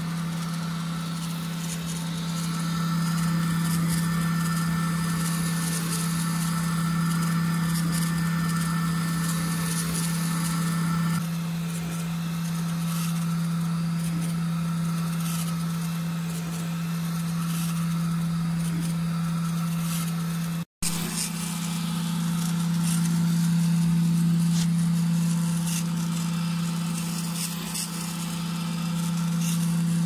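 K40 CO2 laser engraver running while it engraves wood: a steady low hum from its fans and pumps, with faint high ticking. The sound drops out for an instant about two-thirds of the way through.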